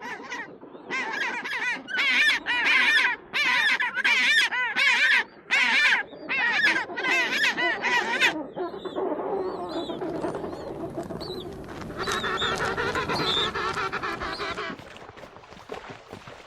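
Birds calling: a run of about ten loud, wavering calls in quick succession, then a softer, overlapping chorus of calls that fades near the end.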